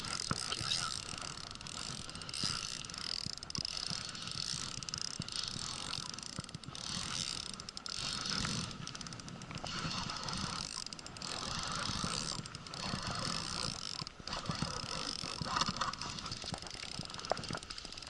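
Fishing reel being cranked steadily, its gears ticking and whirring, as a hooked bigfin reef squid is reeled in.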